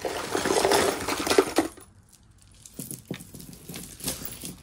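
A handful of tangled costume jewelry jingling and clinking as it is scooped up, a dense rattle for about a second and a half, then a few separate light clicks as pieces are set down.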